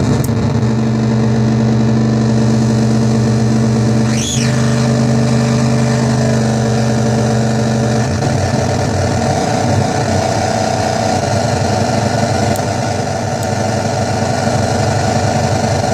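Dirty Drone [anarchy edition] stochastic drone synth, its three interacting triangle-wave oscillators making a loud, buzzing, engine-like drone. About four seconds in, a brief squeal sweeps up and back down. About halfway through, the drone turns rougher and more jittery.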